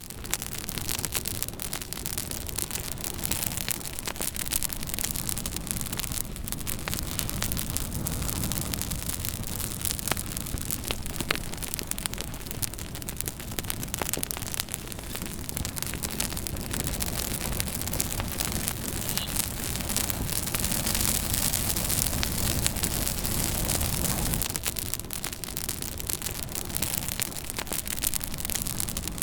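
Campfire burning, with a steady low rumble and many small crackles and pops.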